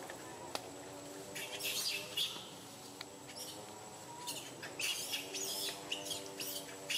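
High, quick chirping calls from animals in the tree canopy, in two bursts: one about a second and a half in, and a longer one from about five seconds on. Under them runs a steady low hum.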